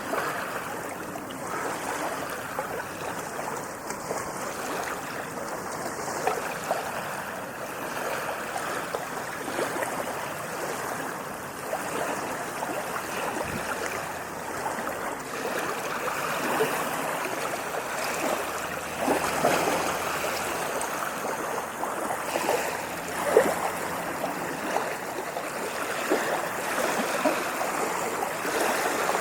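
Water babbling and gurgling in a steady flow, like a stream running over stones, with brief louder splashes here and there, the strongest about two-thirds of the way through.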